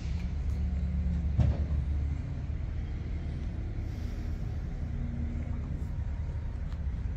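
An engine running steadily, a low rumble with a faint hum, with one brief knock about a second and a half in.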